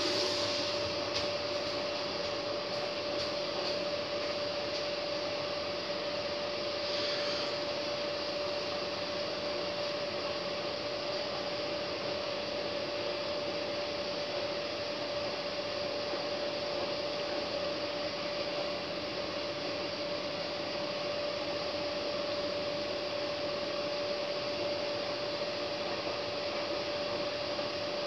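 Hotpoint front-loading washing machine running its first rinse, the drum turning the wet laundry: a steady rushing noise with a constant whine over it.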